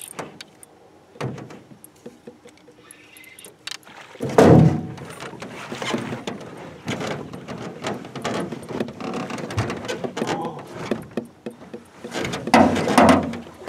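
Knocks, thumps and rattling gear on the aluminum hull of a jon boat while an angler fights a hooked walleye, with the loudest thump about four and a half seconds in and another burst of clatter near the end.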